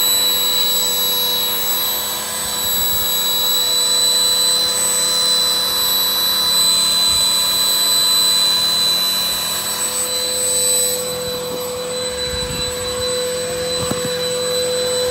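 Electric air pump, run off the car's charger socket, running steadily with a high whine and rushing air as it inflates a large inflatable camel float. About eleven seconds in, its sound turns lower and slightly quieter.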